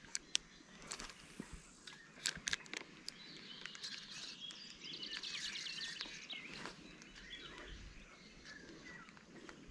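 Birds chirping, with a few sharp clicks from a spinning reel and rod being handled early on, and livelier high chirping a few seconds in.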